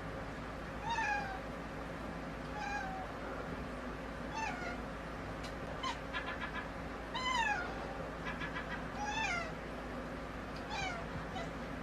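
A cat meowing repeatedly: about seven short meows, each falling in pitch, a second or two apart.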